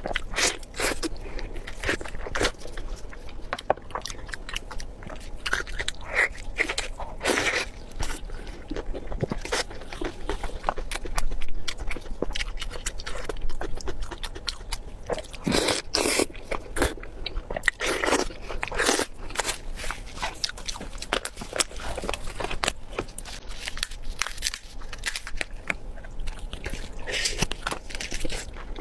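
Close-miked eating sounds of spicy pork belly: irregular biting and chewing with many sharp mouth clicks and a few louder wet smacks.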